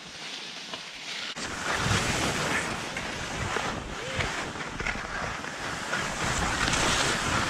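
Wind rushing over the microphone as the filmer skis downhill, mixed with skis hissing over snow. About a second and a half in, the rush suddenly grows louder and deeper, and it stays that way.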